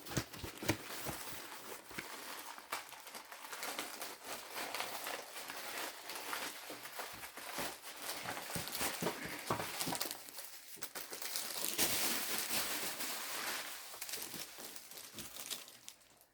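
Packaging crinkling and rustling as items are handled and unwrapped, with many small clicks and taps throughout and a louder stretch of rustling about twelve seconds in.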